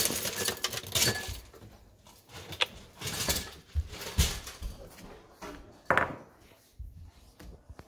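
Irregular rustling and handling knocks as a bowl of dry cereal is carried, with a sharper knock about six seconds in as the cereal bowl is set down on the countertop.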